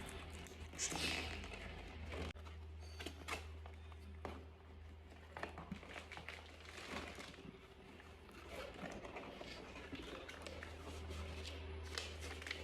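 Handling sounds: scattered clicks, light knocks and rustling, as of packaging and the soundbar being handled, over a steady low hum.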